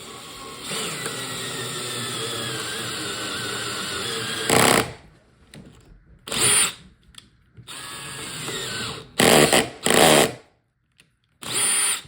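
Power drill boring the hole for a pocket-door locking latch into the edge of the door: one steady run of about four seconds, then several short bursts on and off the trigger.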